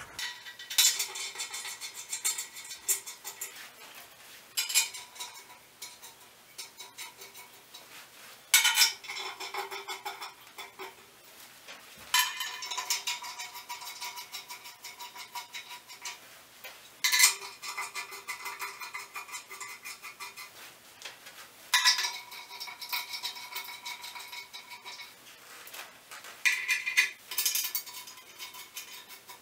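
L-shaped hex key turning socket-head cap screws in a steel plate: bursts of metallic clicking and clinking about every four to five seconds as the key is turned and refitted in the screw heads, with quieter clicks between.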